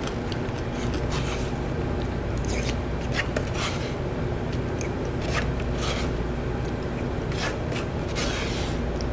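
Metal spoon scraping and clicking against a small bowl while eating: short scattered scrapes and ticks over a steady low hum.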